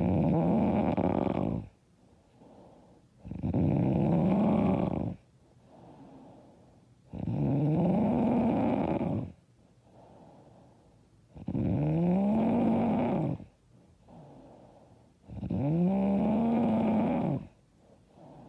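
A woman snoring loudly and regularly: five long, loud snores about four seconds apart, each with a droning tone that rises and then falls, and softer breaths between them.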